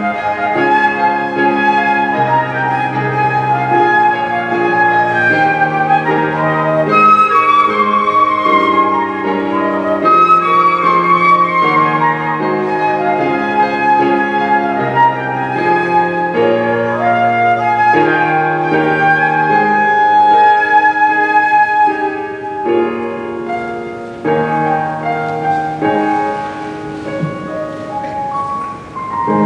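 Solo flute playing a pop-song melody live over a sustained accompaniment with a moving bass line, growing softer over the last several seconds as the piece draws to its close.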